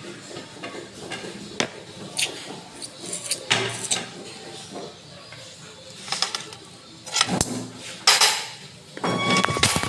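Cutlery clinking against dishes in irregular clatters during a meal. Near the end a sharper clink rings briefly.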